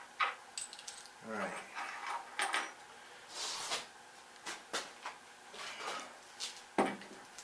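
Scattered small metal clicks and clinks of bolts and hand tools being handled while fastening a machine to a dolly, with a sharper knock near the end.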